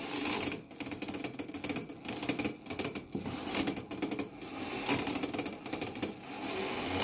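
Strike train of a Seikosha 8-day clock movement running free with its fan governor removed: the wheels whirr and clatter very fast as the strike mainspring lets down.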